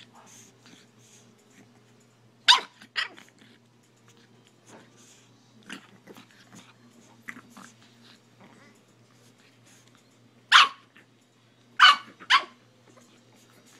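Pug puppy barking in short, sharp barks: two about two and a half seconds in, a quieter one near six seconds, then three more from about ten and a half seconds on.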